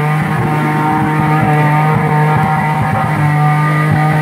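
Off-road 4x4's engine held at steady high revs in first gear as it labours up a steep muddy rut, with uneven low rumbling beneath it.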